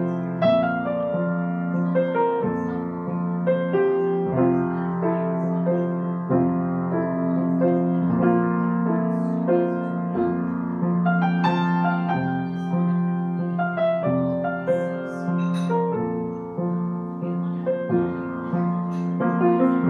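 Piano played without a break: a low note is held underneath while notes and chords change above it every half second or so, moving between chords in a lesson demonstration.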